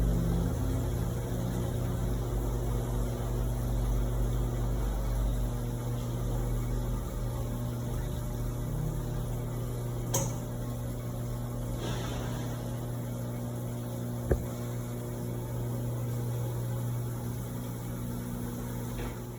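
Electrolux LPE16 washing machine running mid-wash, its motor giving a steady hum with a low rumble. There are two sharp clicks, about ten and fourteen seconds in, and the sound drops off at the very end.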